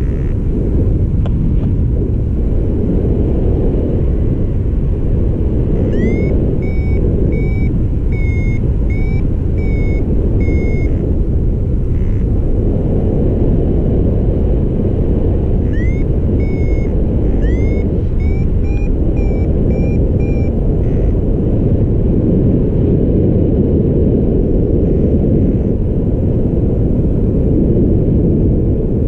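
Steady wind rushing over the microphone in flight, with a paragliding variometer beeping in two spells of short chirps, about two a second, each spell lasting about five seconds. The beeping is the vario's climb tone, the glider rising in lift, and it is a little higher-pitched in the second spell.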